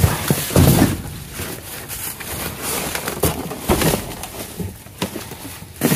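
Hands rummaging through plastic bags and cardboard produce boxes: crinkling and rustling throughout, with a few sharp knocks.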